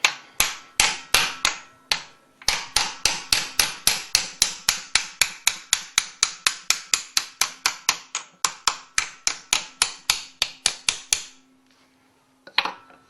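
Hammer tapping an aluminium mandrel to drive a tight gudgeon pin out of a Porsche 911 piston: a fast, even run of sharp metallic taps, about four or five a second. The taps pause briefly about two seconds in and again near eight seconds, stop about eleven seconds in, and one last tap comes near the end.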